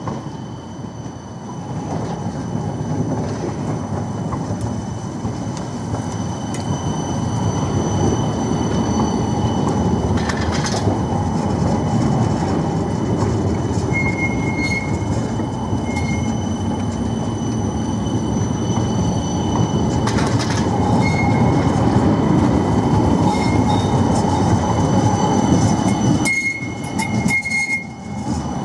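A long CAF Urbos low-floor tram rolls slowly past on a curve, its wheels on the rails making a steady rumble that grows louder as the cars go by close. Thin high tones run over it, and short high wheel squeals come several times, the last about two seconds long near the end.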